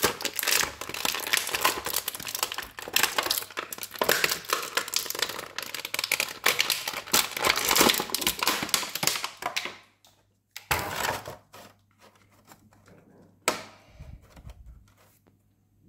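Plastic packaging crinkling and rustling for about ten seconds as an action figure is handled out of it. Then a short rustle and a single sharp click as the figure is set down.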